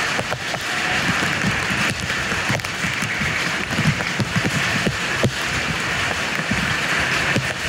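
Steady rush of rain and runoff water running into a roadside slot drain, with irregular splashes and gurgles as a gloved hand works in the water-filled channel to clear the clog.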